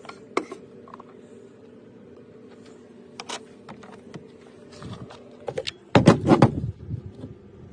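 A cordless coffee maker being handled: sharp plastic clicks now and then over a steady low hum, and a loud burst of knocking and clatter about six seconds in.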